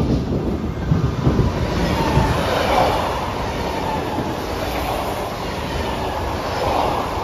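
Train running past at close range: a loud, steady rumble of steel wheels on rail.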